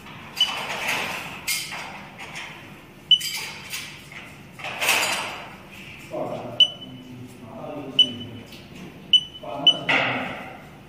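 Touchscreen control panel of a TSP-CV1 tissue processor giving short, high beeps as its buttons are pressed, about six in all, two of them close together near the end. Voices murmur in the background.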